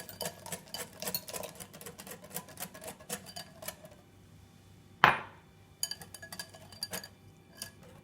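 Wire whisk clinking rapidly against the side of a bowl as a banana custard mixture is whisked with milk, stopping after about four seconds. A single loud knock comes about a second later, then a few light taps.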